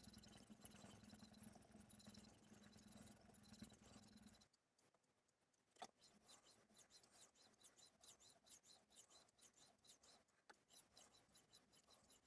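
Faint, quick, even scraping strokes of a steel knife edge being worked on a 3000-grit Suehiro Debado S resin-bonded whetstone, starting about six seconds in after a single click. Before that a low steady hum runs and stops about four and a half seconds in.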